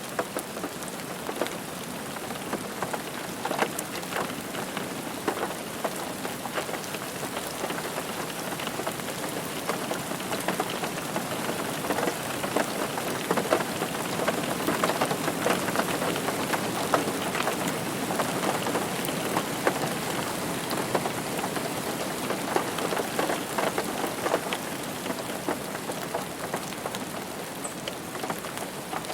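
Rain falling on a car roof: a dense, steady patter of drops with many individual drop ticks, heavier for a while around the middle.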